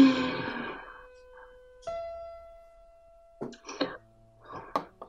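Piano notes ringing out and fading: one at the start and another about two seconds in, followed by a few faint short sounds.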